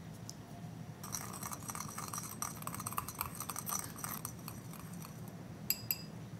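Small metal wire whisk stirring water in a glass bowl: rapid light clinking of the wires against the glass for about four seconds, then two sharp ringing taps near the end.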